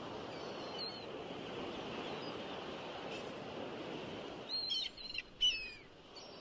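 Small birds chirping outdoors: short calls that fall in pitch, one near the start and a quick cluster in the last second and a half, the loudest of them near the end, over a steady outdoor hiss.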